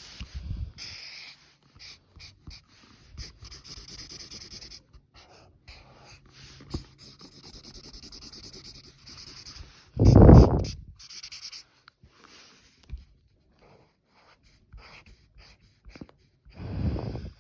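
Exaggerated heavy breathing close to the microphone: three loud breaths, the loudest about ten seconds in. Between them comes the scratchy rasp of coloring strokes.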